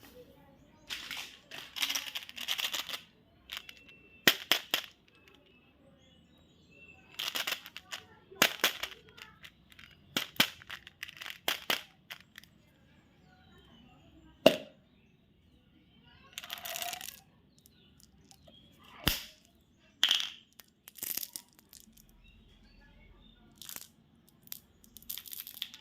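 Crinkling and crackling of candy and chocolate wrappers being handled and opened. It comes in about a dozen bursts with quiet pauses between them, including a few sharp single clicks.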